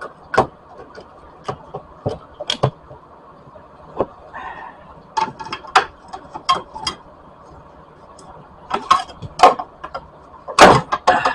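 Irregular sharp clicks and knocks of plastic and metal car parts being pried and handled as a battery-tray backing piece is worked loose, with a louder cluster of knocks near the end.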